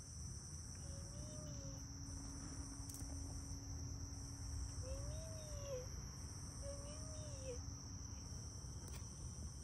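Night-time chorus of crickets: a steady high-pitched chirring, with a second, higher insect buzz cutting in and out every second or two. Three faint drawn-out calls, each rising then falling in pitch, sound over it.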